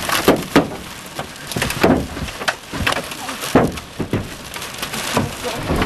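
Giant hailstones, baseball-sized, pounding a truck's body and windows: loud, irregular hard strikes, several a second, over a steady rush of rain and wind.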